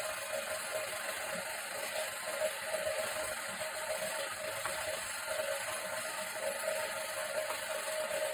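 A plastic spreader scraping back and forth through white adhesive on a plywood sheet, a continuous rasping scrape as the glue is spread in a thin coat for laminate.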